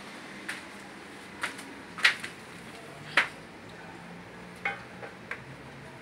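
About six separate sharp metallic clinks and knocks as metal parts or tools are handled, the loudest two about two and three seconds in.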